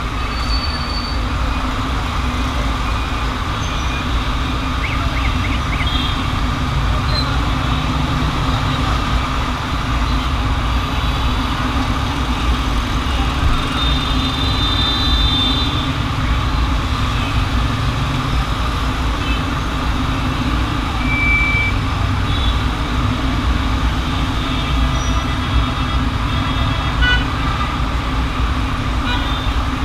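Dense road traffic running steadily, a constant rumble of engines and tyres, with a few short car horn toots now and then.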